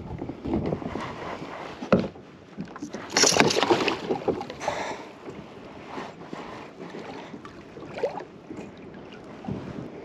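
Wind buffeting the microphone while choppy water slaps against the side of a kayak. About three seconds in there is a louder rush of noise lasting about a second.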